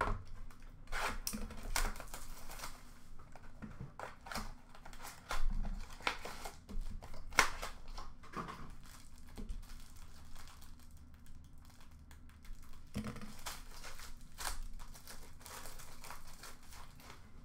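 Trading card pack wrappers being torn open and crumpled by hand: irregular crinkling and tearing of packaging throughout.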